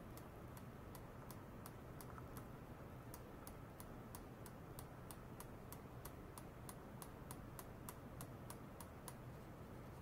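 Faint, regular ticking, roughly three short clicks a second, stopping about nine seconds in, over a steady low hum.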